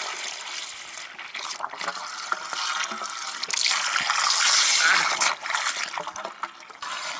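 Water from a garden hose running into a yacht's deck water-tank fill, with a steady hiss and gurgle as the empty tank fills. About three and a half seconds in it surges and sprays up out of the fill opening in a loud splash for a second or so, then drops back.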